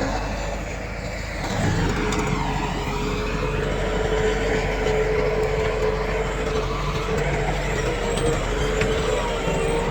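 Heavy diesel engine of earthmoving equipment running steadily, with a steady high whine over the engine; the sound dips briefly about a second in, then comes back up.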